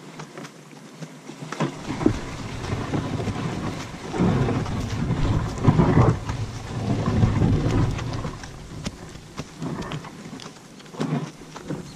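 Horse-drawn sled sliding over bare grass and dirt: a rough rumble with crackling clicks that swells from about two seconds in, is loudest in the middle and eases off near the end.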